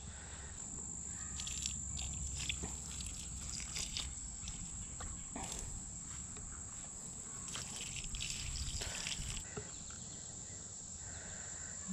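Insects trilling steadily at a high pitch, with scattered rustling and light knocks.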